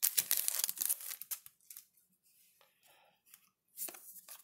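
Baseball trading cards being flipped through by hand, sliding one behind another with papery rustling. The rustle is densest for about the first second and a half, then comes as a few soft flicks, with another short rustle near the end.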